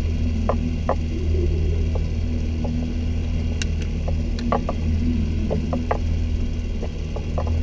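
Boat outboard motor running steadily at trolling speed, a constant low drone, with scattered short clicks over it.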